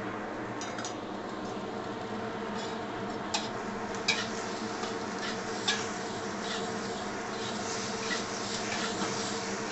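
Metal spatula scraping and clinking against a wok as rice is stir-fried, a few sharp strokes scattered through, over a steady buzzing hum.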